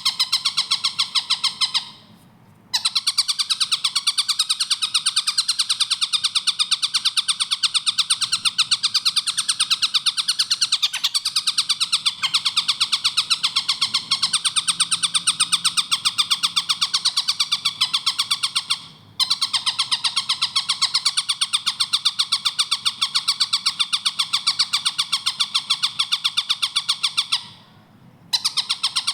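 Tengkek buto kingfisher calling in a fast, tightly packed rattle of rapidly repeated notes, in long unbroken runs. There are three brief pauses: about 2 seconds in, about 19 seconds in, and near the end.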